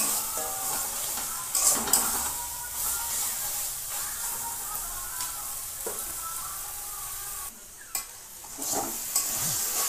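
Thick taro-leaf curry sizzling in a metal kadai as a metal spatula stirs and scrapes it around the pan, with a few sharper scrapes. The curry is being cooked down until nearly dry and almost done.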